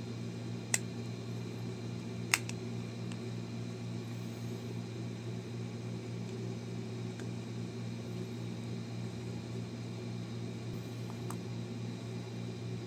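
Sharp clicks of a Honda Civic key fob's plastic case halves snapping apart as it is pried open: two in the first few seconds, the second louder, and a faint one near the end. A steady low hum runs underneath.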